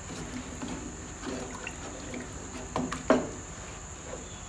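A spatula stirring thick soup in a metal pot: a run of soft wet sloshing and scraping strokes, with a sharper knock about three seconds in.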